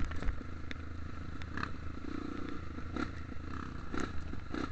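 Off-road motorcycle engine running steadily while riding a rough, muddy trail, with several sharp knocks and rattles as the bike jolts over the ground.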